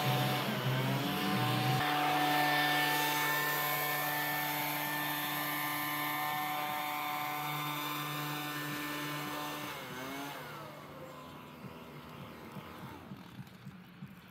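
Gas backpack leaf blower running at steady throttle, its engine whine slowly getting quieter. About ten seconds in the throttle is released and the engine pitch falls away to a quieter idle.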